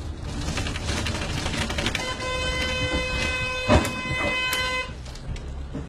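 A vehicle horn sounds steadily for about three seconds, starting about two seconds in, over the rumble of vehicle and road noise. A sharp knock comes partway through the horn.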